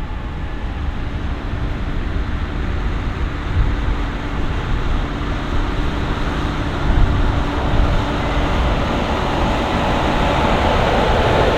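Heavy harvest machinery running: a steady diesel engine drone with mechanical noise, growing gradually louder.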